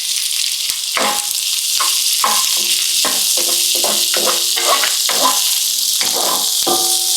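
Chopped onion and garlic sizzling steadily in hot oil in a wok, with repeated short scrapes and clinks of a utensil against the metal pan as it is stirred.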